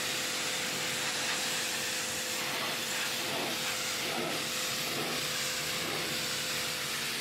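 Water spraying hard from a washing jet: a steady, even hiss with a faint steady hum beneath it.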